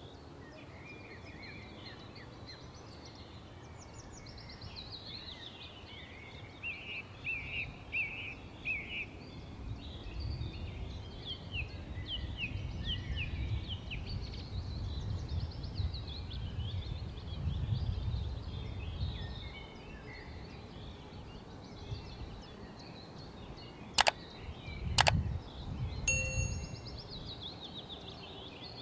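Small birds chirping steadily, while a spoon stirs softened butter with garlic and parsley in a bowl, making a low, uneven rumble for several seconds in the middle. Near the end come two sharp clicks about a second apart, then a short ding.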